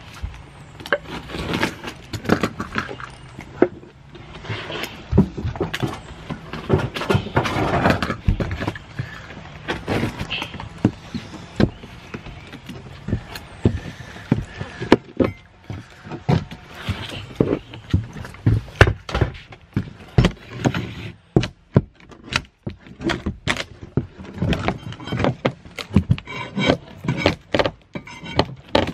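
Rotten plywood porch decking being pried up and pulled loose by hand: a steady run of irregular knocks, cracks and scrapes of wood and tools.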